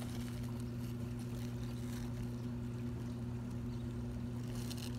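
A steady low mechanical hum, like a motor running, holding one pitch.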